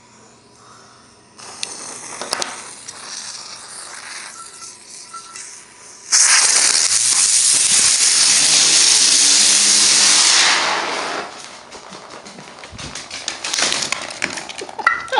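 Firecracker in a frying pan fizzing and hissing instead of exploding: a quieter hiss for a few seconds, then a loud, steady hissing spray for about four seconds that dies away, with no single bang. A few light clicks and knocks come near the end.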